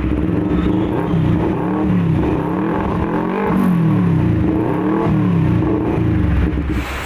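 Motorcycle engine revved repeatedly through an aftermarket slip-on muffler, its pitch rising and falling in a series of blips.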